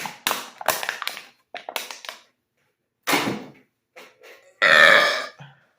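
A man belching several times, brought on by gulping cold Sprite: a run of short burps in the first two seconds, a louder one about three seconds in, and the loudest, longest belch near the end.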